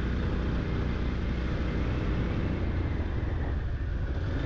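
Yamaha FZ-X motorcycle's single-cylinder engine running steadily at cruising speed, with wind rushing over the microphone. A continuous low, even rumble with no changes.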